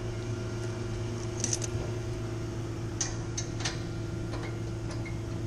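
A steady machine hum, with a handful of scattered light metallic clicks and taps.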